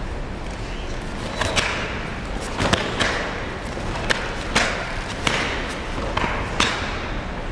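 Sharp snaps of a karate gi cracking with fast strikes and kicks during a kata, about ten in irregular bursts, some in quick pairs, mixed with the thud of feet on the mat, over the steady background noise of a sports hall.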